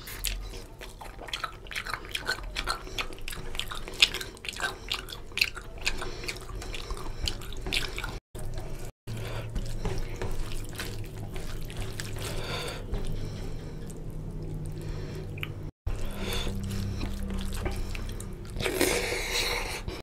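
Close-miked wet eating sounds: fingers squishing and mixing rice with oily chicken curry gravy, with sticky chewing and lip smacks coming as a fast stream of small wet clicks. The sound cuts out abruptly for a moment three times.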